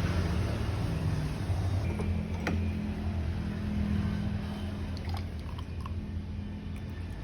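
Steady low mechanical hum, with a sharp click about two and a half seconds in and a few light ticks near the end.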